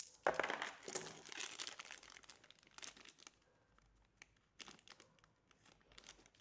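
Thin clear plastic bag of game tiles crinkling as it is handled and folded shut, in irregular bouts, most of it in the first two seconds.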